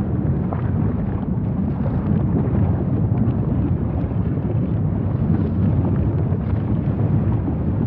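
A steady, deep rumble with no pitch or beat, heaviest in the low end and even throughout.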